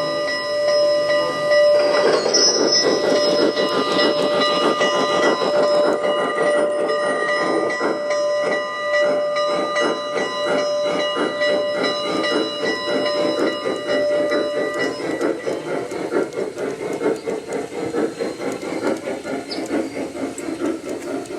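Sound-equipped G-scale model steam locomotive, its DCC sound decoder playing through an onboard speaker, chuffing steadily as it pulls out with its train. A long steady tone sounds with it until about 15 seconds in, and the sound fades slightly near the end.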